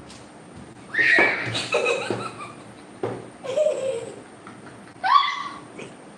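Children laughing and squealing in several short, high-pitched bursts, about a second in, again around three seconds and once more near five seconds.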